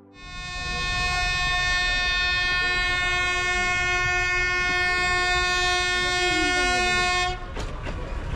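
Nilgiri Mountain Railway train's horn sounding one long steady blast of about seven seconds, cutting off suddenly, over a low rumble from the train.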